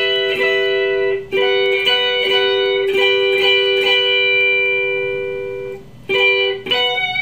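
Electric guitar through a clean Fender amp simulation with flat EQ and low gain, picking notes on the top three strings to check the tone for excess or harsh treble. Quick repeated picks, then one note left ringing and fading for about three seconds, a brief stop about six seconds in, and a few more notes.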